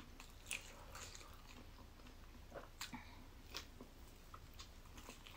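Faint close-up chewing and biting of soft tofu-based vegetarian mock chicken, with scattered short mouth clicks at irregular moments.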